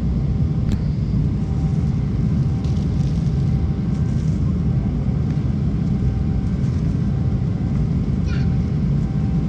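Steady low rumble of an airliner's passenger cabin, with a few faint crinkles of plastic wrapping being handled.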